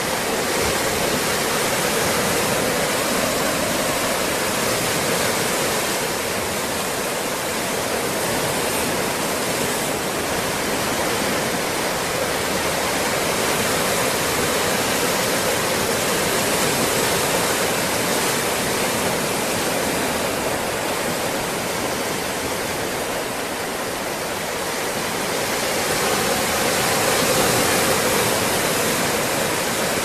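Atlantic Ocean waves washing and rushing without a break, swelling slowly and a little louder a few seconds before the end.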